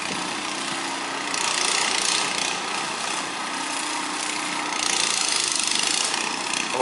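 Vỏ lãi longtail boat engine running and twice revving up, as the boat strains against dense water hyacinth without moving. Its propeller is fouled with plastic bags.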